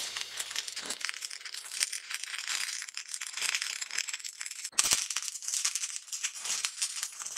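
Stick-welding arc crackling and sputtering irregularly as a steel piece is welded to a steel plate, with a louder burst a little before five seconds in.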